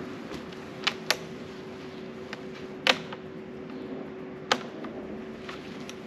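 Sharp handling clicks on a parked scooter with its engine off: a pair close together about a second in, another near three seconds and one more about four and a half seconds in, over a steady faint hum.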